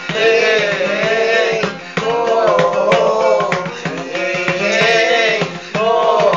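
Acoustic guitar strummed under a man singing a folk song in phrases of about two seconds, with sharp percussive beats keeping time.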